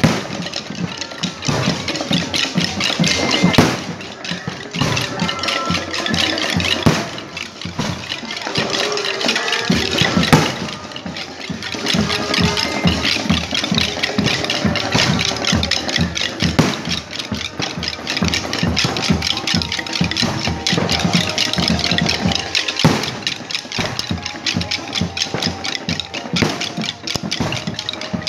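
Fireworks going off overhead: a dense, continuous run of crackling pops, with louder bangs about three and a half seconds in and again about ten seconds in.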